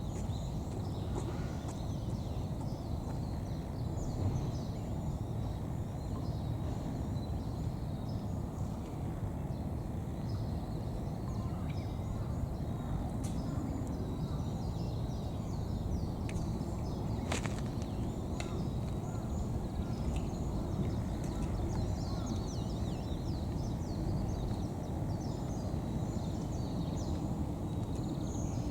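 Steady low outdoor rumble with small birds chirping faintly and intermittently, and one sharp click a little past the middle.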